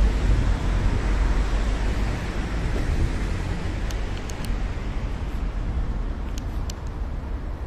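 Steady city street ambience: a low rumble of road traffic that gradually gets quieter, with a few faint high ticks partway through and near the end.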